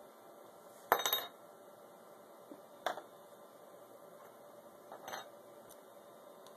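Three short clatters of a hard object knocking on a hard surface: the loudest about a second in, another near three seconds in, and a weaker one about five seconds in.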